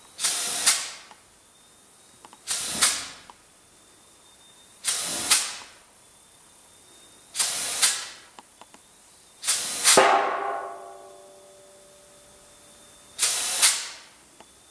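Compressed air hissing out of a pneumatic sculpture's valves in short bursts, six times at roughly two-and-a-half-second intervals. About two-thirds through, a sharp knock comes with one burst and leaves a short metallic ringing that dies away.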